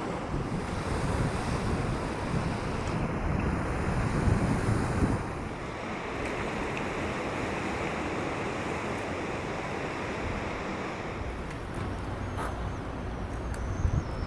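Sea waves washing on the shore, with wind rumbling on the microphone. The surf swells louder in the first five seconds, then drops back suddenly.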